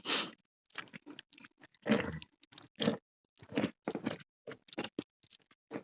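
Close-miked chewing and biting of food, irregular short mouth noises a few times a second.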